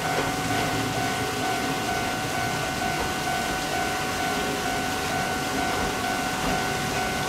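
Kominato Railway KiHa 200 diesel railcar running slowly into a station, its diesel engine and wheels on the rails making a steady, even noise.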